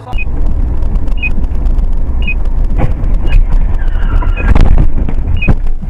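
Dashcam recording of a vehicle collision: heavy low rumble of road and engine noise, then crashing impacts, the loudest about four and a half seconds in. A short high electronic beep repeats about once a second.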